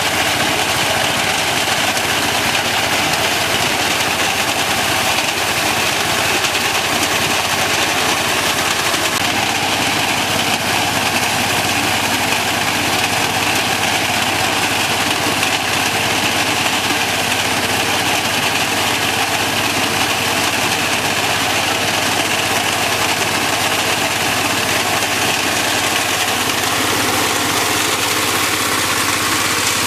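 Small tractor's engine running steadily while its front-mounted reaper cuts through standing wheat.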